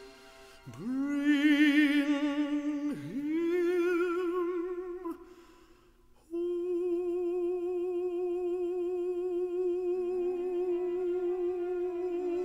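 A baritone singing with wide vibrato: two notes, each scooped up into pitch, with a short pause after them, then one long held note. Soft accompaniment comes in underneath near the end.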